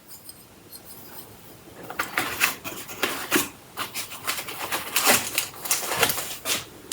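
Hands unpacking small accessories and their packaging: a quick, irregular run of crinkles and light taps that starts about two seconds in.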